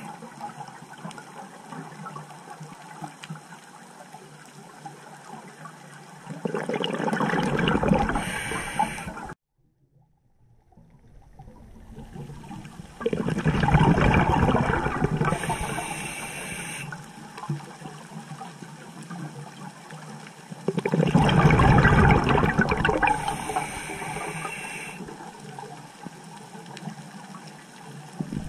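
Scuba diver breathing through a regulator underwater: three loud gushes of exhaled bubbles, about every seven to eight seconds, each ending in a short hiss, over a steady underwater wash. The sound cuts out briefly about a third of the way in.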